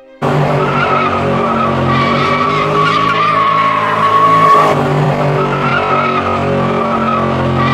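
Chevrolet Camaro V8 held at high revs while the rear tyres spin in a burnout, the tyres squealing steadily over the engine. The sound cuts in suddenly just after the start.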